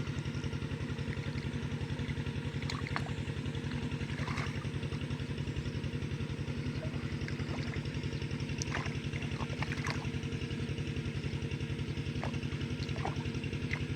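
A small engine running steadily at low revs, with an even, rapid chugging pulse. A few faint clicks sound above it.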